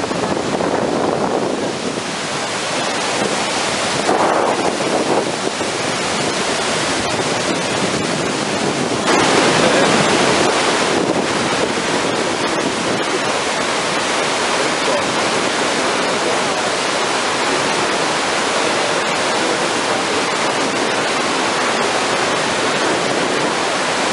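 Iguazú Falls in flood: a huge volume of muddy water plunging into the gorge, making a loud, steady rushing roar that grows louder about nine seconds in.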